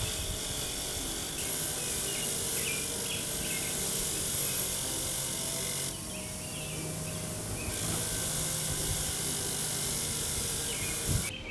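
Bench grinder's wire wheel spinning with a rusty part of a Stillson pipe wrench pressed against it, scouring off rust in two long passes with a short let-up about six seconds in. The grinder motor hums steadily underneath.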